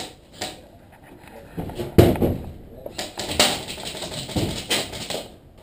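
A run of irregular knocks and clicks, the loudest about two seconds in.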